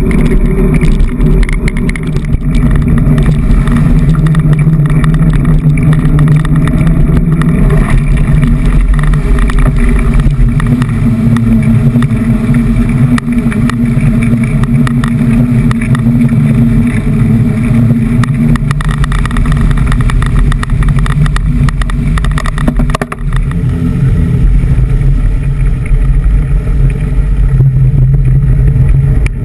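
Loud, steady, muffled rumble of a mountain bike being ridden, picked up by a handlebar-mounted GoPro HERO2 in its waterproof housing: tyre and frame vibration carried through the handlebars.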